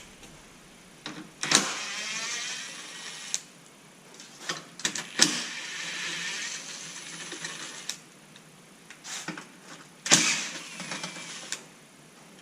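A ratchet wrench clicking in three runs as 10 mm bolts are backed out, with scattered sharp clicks of the tool and metal parts between them.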